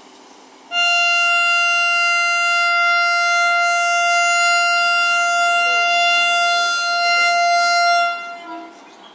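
Electric locomotive horn sounding one long, steady, loud blast of about seven seconds, which stops shortly before the end.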